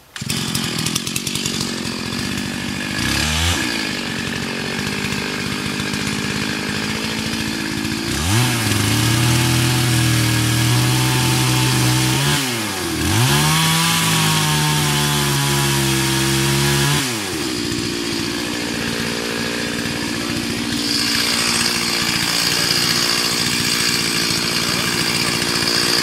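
Two-stroke chainsaw running. It comes on suddenly, revs briefly about three seconds in, and is then held at high revs twice for about four seconds each. After that it runs on at a lower speed.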